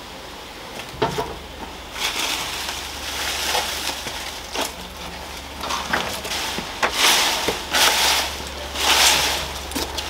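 Irregular rustling and crunching of cut ivy stems and leaves being gathered up by hand, with a few sharp clicks, loudest twice near the end.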